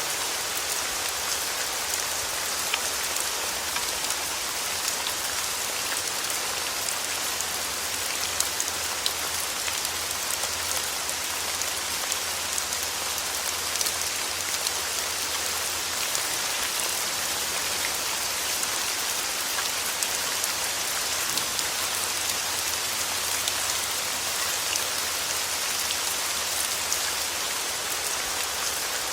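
Steady rain falling on a surface: a dense, even hiss speckled with many small sharp drop ticks.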